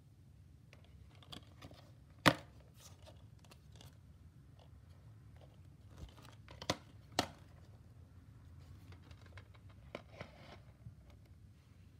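Plastic DVD cases being handled and set down by hand: a sharp click about two seconds in, two more knocks a half second apart around the middle, and light rustling and smaller clicks between.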